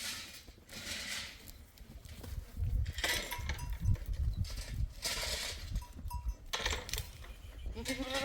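Several bursts of rustling noise with low thumps, then a single goat bleat near the end.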